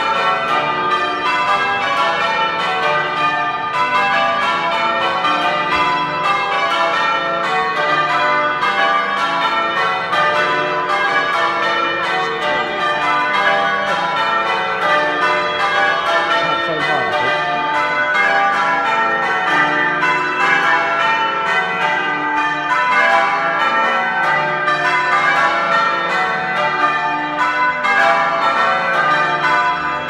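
Change ringing on a ring of eight church bells with a 20 cwt tenor, heard from outside the tower: an unbroken, evenly paced stream of bell strikes, with the rounds and changes running on without pause.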